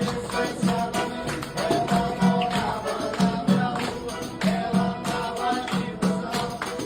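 Live forró music with a steady, regular beat and percussion.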